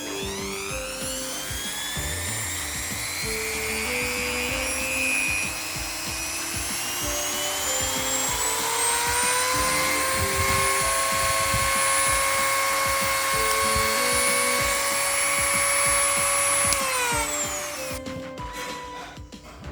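Mini grinder (small electric rotary tool) motor speeding up with a rising whine over about ten seconds, then holding a steady high pitch. Near the end it cuts out and winds down quickly. Background music plays underneath.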